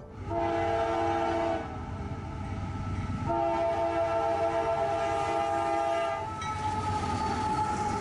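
CSX diesel freight locomotive's multi-tone air horn blowing two blasts, a short one and then a longer one of about three seconds, as it approaches a grade crossing. Afterwards the engine rumble and rolling noise of the train grow as the locomotive draws level.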